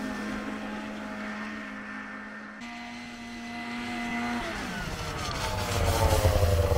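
Arctic Cat 370 snowmobile's two-stroke engine running at a steady pitch as the sled rides off down the trail, then coming back louder and passing close near the end, its pitch falling as it goes by.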